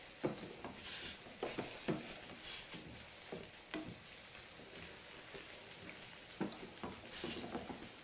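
Sliced mushrooms sizzling and simmering in a white wine sauce in a stainless steel skillet, the wine reducing into a sauce, stirred with a wooden spatula that scrapes and knocks against the pan now and then.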